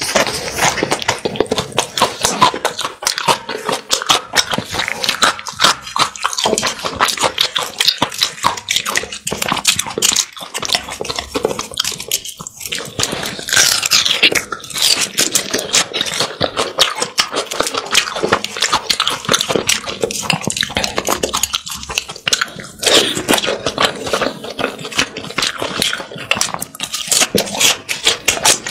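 Close-miked eating: biting and chewing a fried egg, a dense run of small mouth clicks and crackles that hardly lets up.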